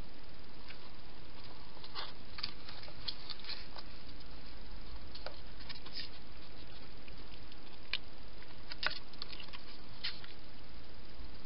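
Hedgehog feeding at a dish, making scattered small clicks and crackles of chewing and smacking, heard over a steady hiss.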